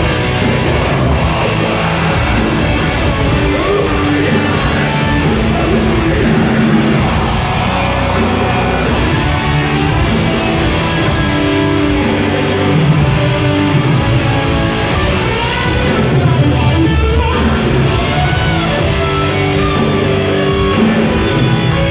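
Metalcore band playing live through a concert PA: loud distorted electric guitars and drums with vocals, heard through a phone microphone in the crowd.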